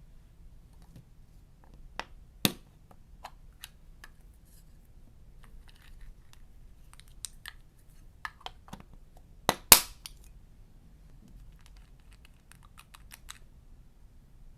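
Sharp clicks and taps of small makeup containers and tools being handled, with two loud snaps, one about two and a half seconds in and one near the middle, and a run of light ticks near the end.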